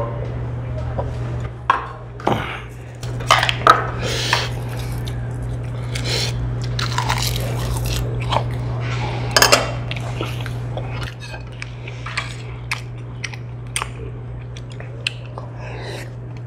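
Close-miked mukbang eating: chewing and biting on stir-fried octopus and rice, with scattered sharp clicks of chopsticks and spoon against the bowls, over a steady low hum.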